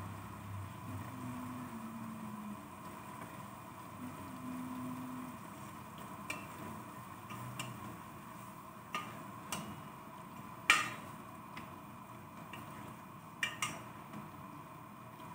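Stirring chicken and papaya pieces in a large aluminium pot with a plastic cooking spoon. The spoon knocks against the pot about nine times in the second half, one sharp clank a little past the middle being the loudest, over a steady background hum.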